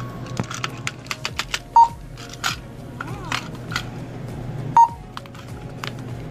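Checkout barcode scanner beeping twice, about three seconds apart: a short single-tone beep each time an item is read. Small clicks and rustles of packets being handled in between.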